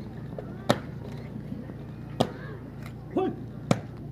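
Sharp cracking impacts, about one every second and a half, with a man's short rising-and-falling shout about three seconds in, over a steady outdoor background.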